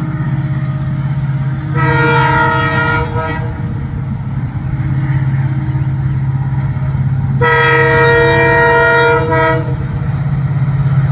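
Rani Chennamma Express locomotive sounding its multi-tone horn in two long blasts, the first about a second and a half, the second about two seconds with a brief dip near its end, over the steady low rumble of the arriving train.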